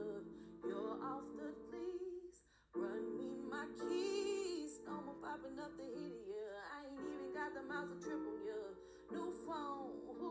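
Background music: a song with a singing voice over instrumental backing, breaking off briefly about two and a half seconds in.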